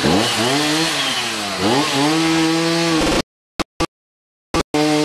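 A small engine revving up twice, then running steadily at high speed. The sound cuts out for over a second about three seconds in, then resumes.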